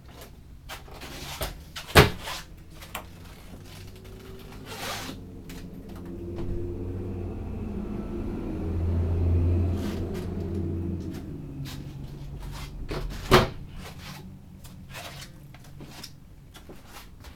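Interior doors of a travel trailer being handled: a sharp latch click about two seconds in and another near the end, with a low rumbling slide and rub between them.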